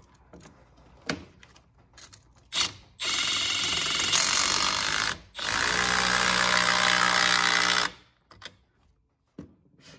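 Cordless drill-driver runs twice, about two seconds each with a short break between, starting about three seconds in, spinning down a T-bolt hose clamp on the upper radiator hose. A few light knocks of handling come before it.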